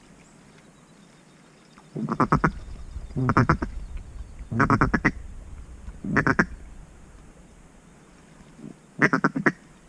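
Loud duck quacking in five short runs of rapid quacks, each about half a second long and a second or so apart, with a longer pause before the last run.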